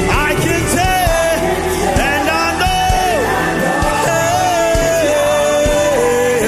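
Live gospel worship music: a lead voice sings long held notes that slide up and down, over a band with a regular drumbeat.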